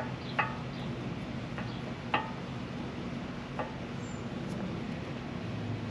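A few short metallic clinks, about four spread over the first few seconds, from worn, removed ball joint pieces being handled, over a steady low hum.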